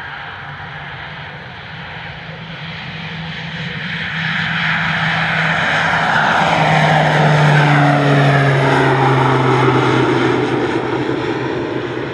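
Pilatus PC-12's single Pratt & Whitney PT6A turboprop at takeoff power going past: the propeller drone grows louder, peaks about eight seconds in, and its pitch drops as it passes, then it begins to fade.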